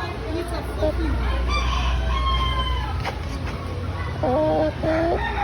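Several chickens calling and clucking, with short pitched calls throughout and a louder call about four seconds in.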